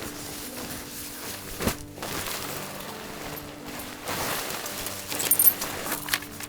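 Soft background music with steady held notes. Over it come handling noises: a sharp click about a second and a half in, then rustling and a few bright metallic clinks from about four seconds in.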